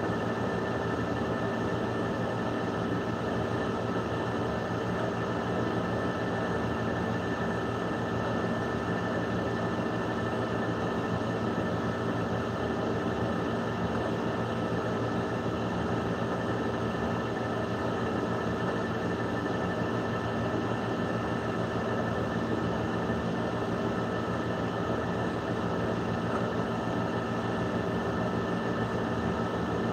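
A steady machine hum with several constant tones, unchanging throughout.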